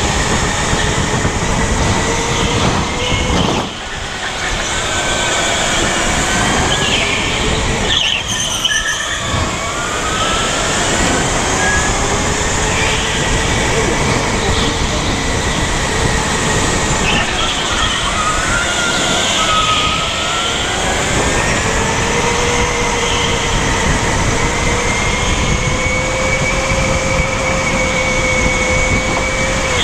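Electric go-kart driven hard on an indoor track, heard from onboard: the motor's whine rises and falls with speed through the corners over a steady rush of tyre and wind noise.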